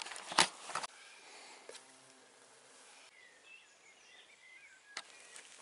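Rustling and knocks of the camera being handled in the first second. Then a quiet woodland background with faint bird chirps and a single click near the end.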